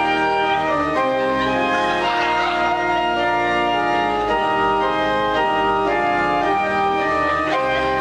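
Organ playing a slow hymn in held chords that change about once a second.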